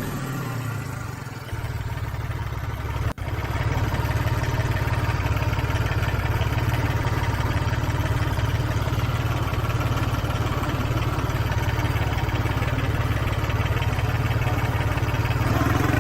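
Engine running steadily at idle, with a short break about three seconds in and a rise in revs near the end.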